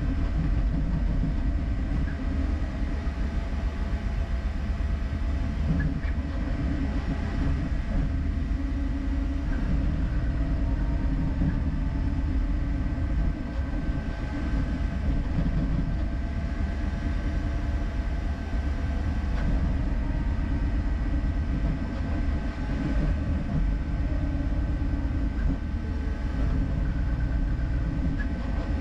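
Creality K1C 3D printer mid-print at high speed: a steady mechanical rumble with several constant high whining tones from its motors and fans.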